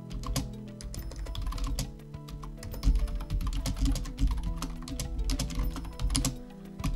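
Computer keyboard being typed on in quick, uneven keystrokes, over background music.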